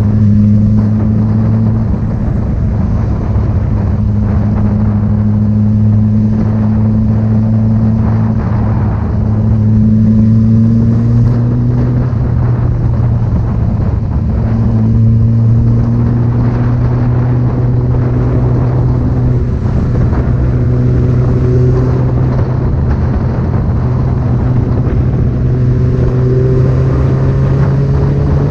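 A loud engine running at a steady speed, its pitch holding fairly even and drifting slightly up and down a few times.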